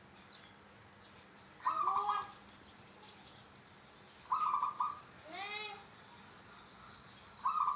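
Caged zebra dove (perkutut) cooing its song: each phrase a quick stuttering run of notes followed by drawn-out arching coos. The phrase comes three times, about every two and a half seconds, the last starting near the end.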